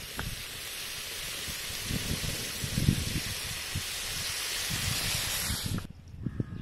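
Squid stir-fry sizzling in a steel wok while a wooden spatula stirs and scrapes it, with dull knocks from the stirring. The sizzle cuts off suddenly near the end.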